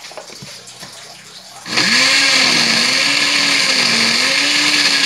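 Electric countertop blender switched on about a second and a half in, running loud and steady as it blends mango and milk into a shake; its motor pitch rises and dips slowly. A few light knocks come before it starts.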